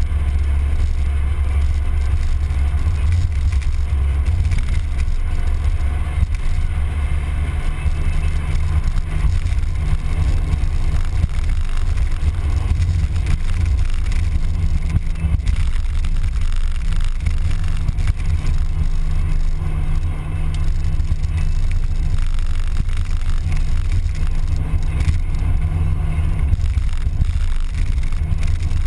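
Mazda Miata four-cylinder engine and tyres while the car drives at a steady pace, heard as a loud, even low drone with wind and road noise over it. The engine note steps up a little about halfway through and falls back near the end.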